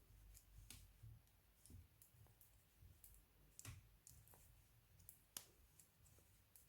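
Knitting needles faintly clicking and scraping against each other as stitches are worked, in an irregular patter with a few sharper clicks among them.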